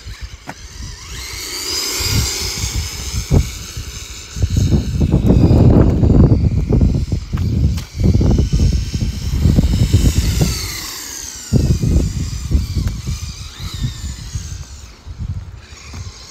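Battery-powered 3D-printed RC car's electric motor whining, the pitch rising and falling in several sweeps as it speeds up and slows. Heavy, uneven low rumble comes through the middle stretch.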